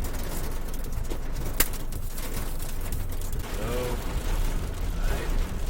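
Storm wind buffeting the microphone in a steady low rumble, with a sharp tap about a second and a half in. Around four seconds in comes a short, pitched call that bends up and down, and a fainter one a second later.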